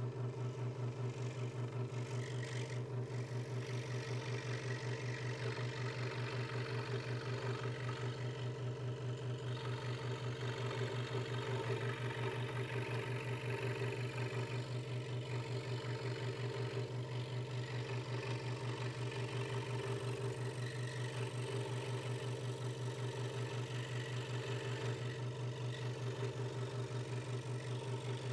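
Hegner Multicut 2S scroll saw running steadily, its reciprocating blade cutting through a thin wooden board. It makes a steady hum with a fast, even pulse from the blade strokes.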